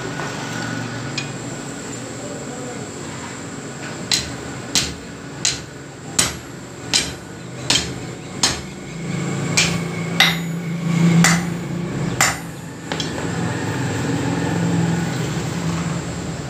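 Hammer blows on a red-hot steel rod held on an anvil block: about a dozen sharp, ringing strikes, evenly spaced a little under a second apart, starting about four seconds in and stopping shortly past the middle. A steady low hum runs underneath.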